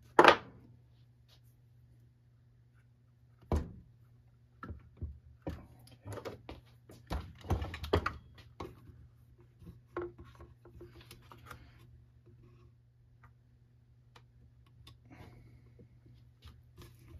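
Handling noise at a workbench: irregular clicks and knocks of needle-nose pliers and the trimmer's plastic fuel tank as new fuel line is threaded through the tank. There is a loud knock at the very start and another about three and a half seconds in, with a low steady hum underneath.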